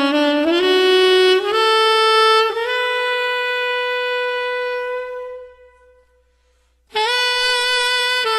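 Slow solo instrumental music: a single instrument plays long held notes. One note fades away about five and a half seconds in, there is a second of silence, and the melody resumes near seven seconds.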